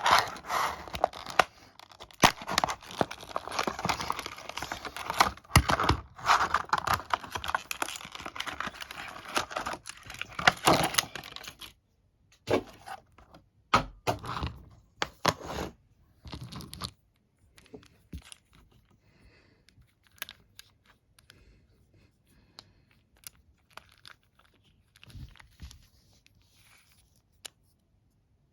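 Packaging being torn open and crumpled: dense ripping and crinkling for about twelve seconds, a few shorter tears after that, then only scattered light clicks and handling sounds.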